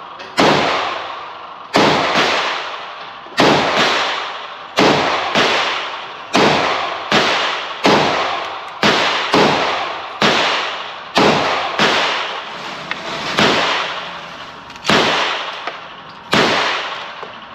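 Handgun shots fired in steady succession, about one a second and roughly sixteen in all, each sharp crack trailing off in a long echoing decay.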